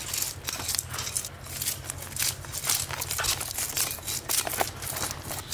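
Knife scraping the scales off a whole hilsa fish: quick, irregular rasping strokes, several a second, over a steady low hum.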